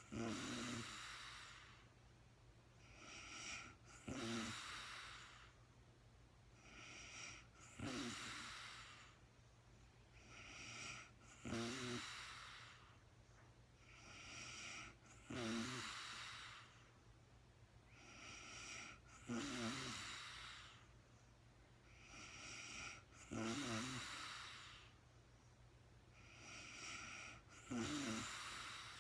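A sleeping woman snoring in slow, regular breaths, about one every four seconds, each ending in a short rattling snore.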